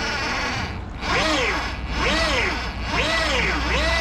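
Whine of a 2000-watt e-bike hub motor driving a propeller, rising and falling in pitch four times, about once a second, as the power comes on and off.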